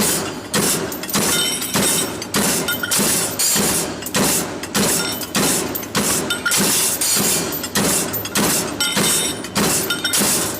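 Forging hammer striking hot metal in a steady rhythm, about two sharp blows a second, with a metallic ring between strikes.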